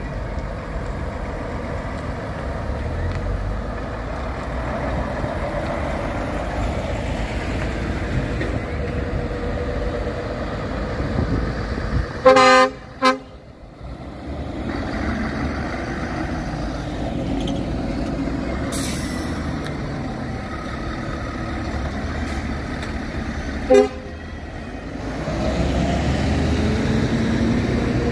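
Diesel trucks pulling away with their engines running steadily. About twelve seconds in a truck horn sounds in a long blast followed by a short one, the loudest sound here, and a short toot comes about twenty-four seconds in. Near the end the engine noise grows louder as another truck draws close.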